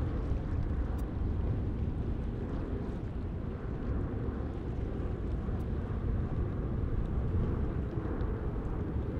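Steady low rumble of a landing jet airliner's engines.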